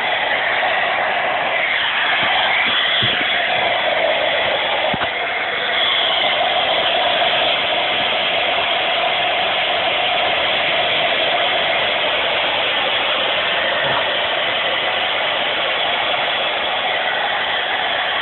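Hair dryer blowing steadily, an even rush of air with a hum in the middle range.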